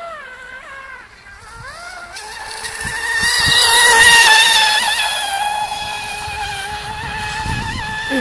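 Radio-controlled F1 tunnel-hull model boat's motor running at speed with a high whine. The pitch climbs over the first couple of seconds, is loudest as the boat passes close about four seconds in, then holds steady and fades as it moves away.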